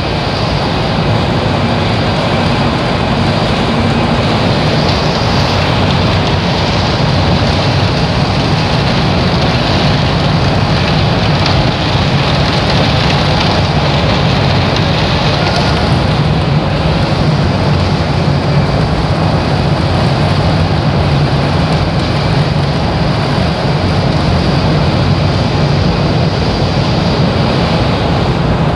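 Olive mill reception machinery running: the hopper conveyor and olive elevator make a loud, steady mechanical noise with a low hum throughout.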